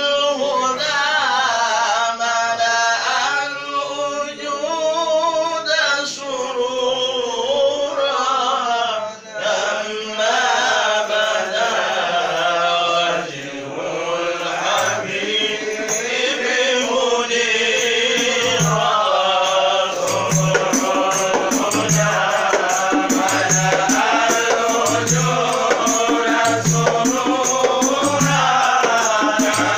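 A group of men chanting a devotional qasida together. About halfway through, frame drums (daira) come in with a steady beat, with a rattle above it.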